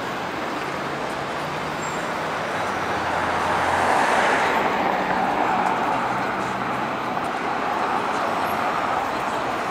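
Road traffic going by, with one vehicle passing that swells to loudest about four seconds in and then fades, over a steady low engine hum.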